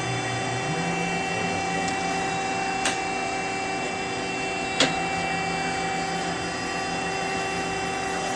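Okuma MF-46VB vertical machining center running, a steady mechanical whine made of several constant tones. A low tone rises and levels off about a second in, and two short sharp clicks come about three and five seconds in.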